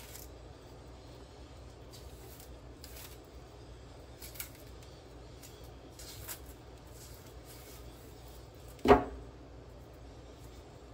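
Knife peeling a ripe plantain by hand: faint scraping and a couple of light clicks, then one loud, sharp knock about nine seconds in.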